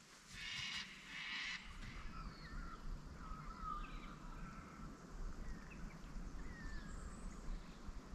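Birds calling faintly: two harsher calls in the first second or two, then scattered short chirps and whistles, over a low background rumble.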